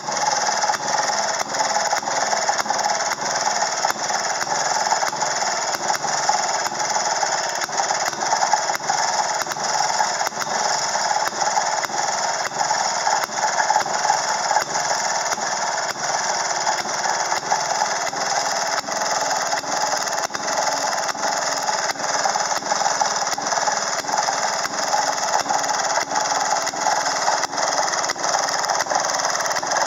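1935 Maytag 3/4 horsepower single-cylinder two-stroke gasoline engine running steadily on its own, firing in an even, unbroken rhythm.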